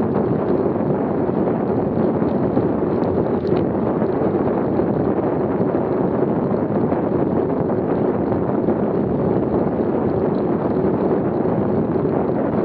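Steady wind rushing over the microphone of a camera on a bicycle moving at about 20 mph.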